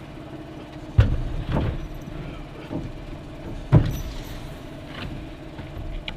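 Steady engine hum, with two loud knocks about a second in and near the middle and a few lighter knocks between, from building material being handled on a job site.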